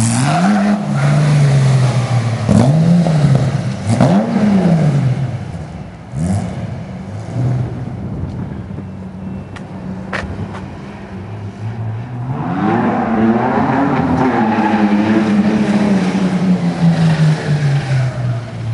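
Off-road buggy engine revving hard in several quick rises and falls, then one long climb and slow fall from about twelve seconds in, as the buggy does a burnout and donut on pavement.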